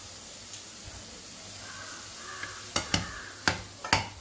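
Grated carrot frying in oil in a pan with a steady sizzle while a spatula stirs it. In the last second and a half, about five sharp knocks come from the spatula striking the pan.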